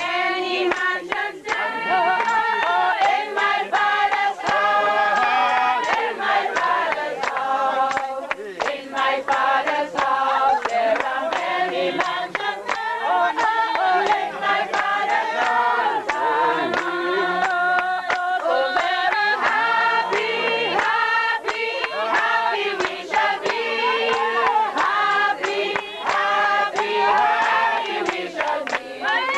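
A group of people singing together, with frequent sharp claps running through the song.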